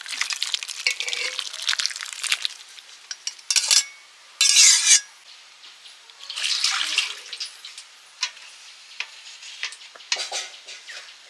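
Hot bottle gourd curry being scooped and poured from a cooking pot into a steel bowl: a metal ladle scraping and clinking against the metal, with wet sloshing of the curry. A few brief louder scrapes stand out, the loudest about four and a half seconds in.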